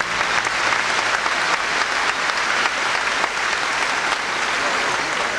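Audience applauding, a steady clatter of many hands.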